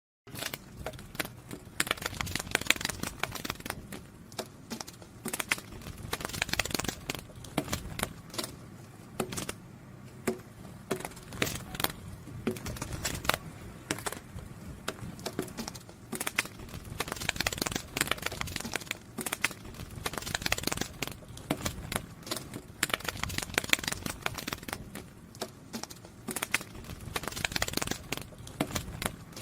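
Fluttering and rustling of butterfly wings: irregular clusters of quick, light clicks and crackles that swell and fade every few seconds.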